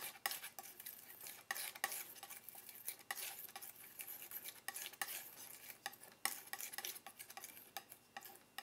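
Acrylic paint being mixed on a palette: a run of faint, irregular scraping and tapping strokes.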